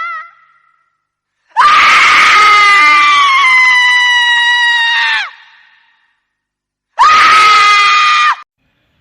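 Horror sound-effect scream of a female ghost: a loud, high-pitched scream held for about four seconds, sagging slightly in pitch. After a pause comes a second, shorter scream.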